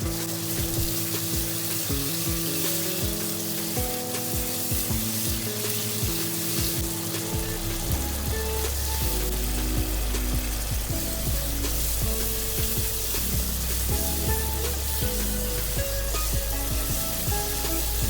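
Chopped vegetables sizzling as they fry in oil, a steady hiss under background music, with a deep bass line coming into the music about halfway through.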